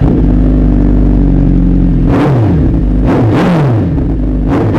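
Suzuki Hayabusa's 1300 cc inline-four running through an aftermarket exhaust, loud: it idles steadily for about two seconds, then is revved three times, the revs falling back after each blip.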